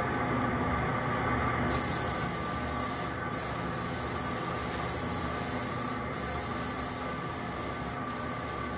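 Gravity-feed paint spray gun hissing as it sprays the panel. The hiss starts about two seconds in and stops briefly three times as the trigger is let off between passes, over a steady low background noise.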